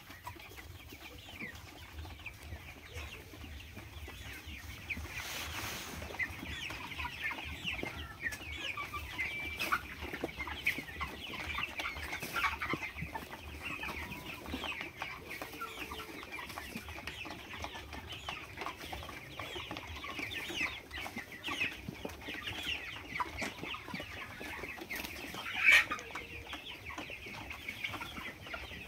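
A large flock of hens clucking and chattering all at once in a busy, continuous babble, with one louder, sharper call near the end.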